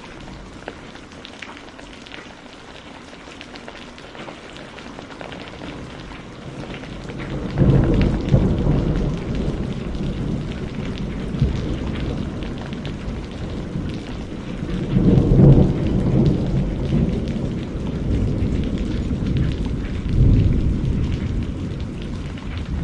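Steady rain hissing, then a third of the way in thunder starts rolling in, a deep rumble that swells three times over the rain and stays going to the end.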